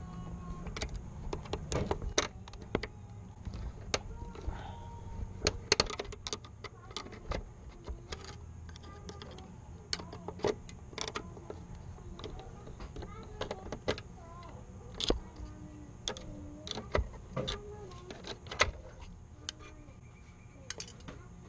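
Irregular metallic clicks and taps of a hand tool and fingers working the wire-terminal nuts on a starter solenoid, some louder knocks among them.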